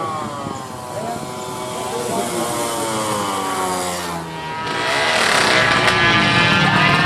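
Racing 116cc underbone motorcycle engines revving, their pitch sliding up and down. The engines get louder and harsher about four and a half seconds in.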